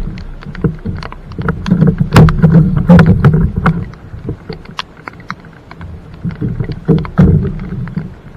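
Plastic fishing kayak and its gear knocking, bumping and scraping in shallow water as a man climbs out and handles the boat and its paddle: a run of irregular knocks and rattles over a low rumble, loudest from about two to four seconds in and again around seven seconds.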